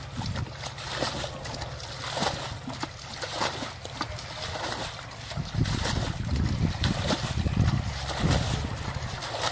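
Water splashing and sloshing in a shallow stream, with many small knocks and a low rumble that is heaviest past the middle.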